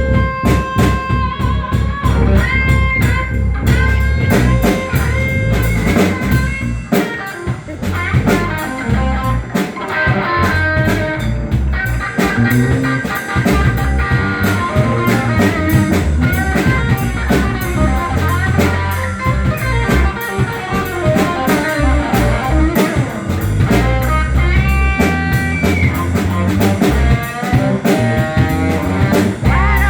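Live band playing an instrumental jam: an electric guitar lead with held, bending notes over a drum kit and bass.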